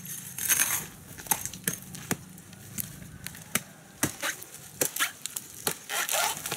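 Fibrous tissue of a coconut palm's crown being broken and torn open to reach a weevil grub nest: a run of sharp cracks and snaps, with a longer tearing rasp about half a second in and another near the end.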